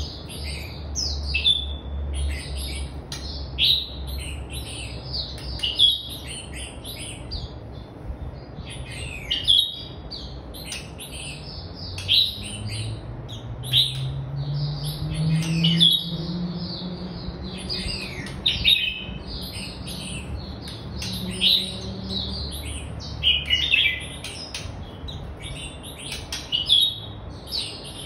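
Red-whiskered bulbul singing in its cage: short chirps and whistled phrases follow one another almost without pause.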